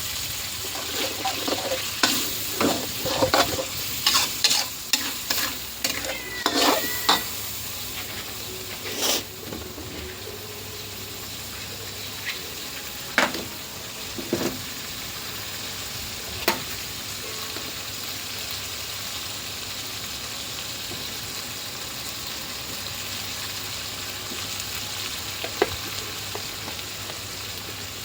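Food frying in a pan with a steady sizzle, while a spatula stirs it. For the first nine seconds or so the spatula scrapes and knocks against the pan in quick strokes; after that it strikes only now and then, a few single knocks.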